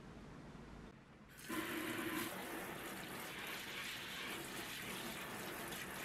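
Kitchen tap spray switched on about a second and a half in, showering water steadily onto the leaves and soil of a potted ZZ plant and into a stainless steel sink. Before that, only quiet room tone.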